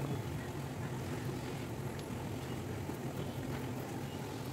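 A steady low hum under faint background noise.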